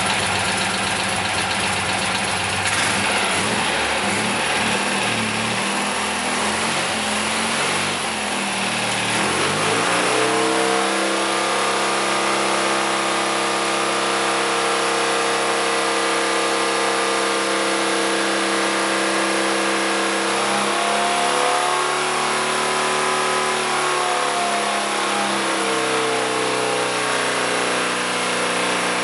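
Citroën 2CV air-cooled flat-twin engine, enlarged to 760cc with Nikasil cylinders, running on a test stand during its run-in. For about the first ten seconds it runs unevenly with a rougher, noisier sound, then settles into a steady run with only slight changes in pitch.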